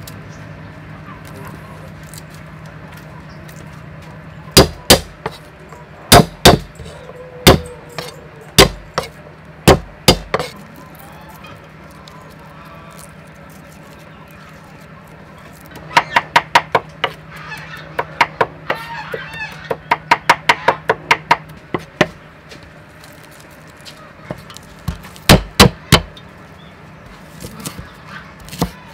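Cleaver chopping on a thick wooden chopping block: about eight separate heavy chops in the first ten seconds, then a quick run of chops at three or four a second, then a few more near the end. A steady low hum runs underneath for most of it.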